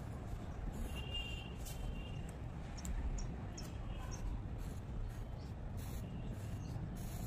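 Graphite pencil scratching on sketchbook paper in short strokes, over a steady low background rumble. A few faint high chirps come about a second in and again around four seconds.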